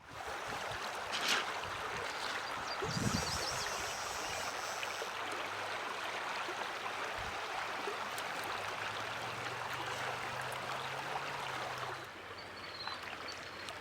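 Steady rush of flowing stream water, dropping somewhat softer about twelve seconds in. A sharp knock about a second in and a low thump around three seconds cut through it, and a few faint high chirps come near the end.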